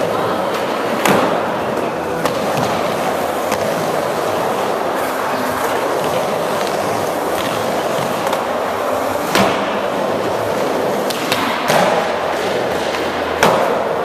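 Skateboard wheels rolling steadily over indoor wooden ramps, with several sharp clacks of boards hitting the ramp surface, the loudest about a second in, around nine seconds and near the end.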